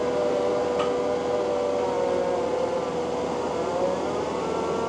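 Takeuchi TL12 V2 diesel track loader running under load, driving a high-flow Conetex rotary attachment that grinds into the soil; a steady, even whine with no change in pitch.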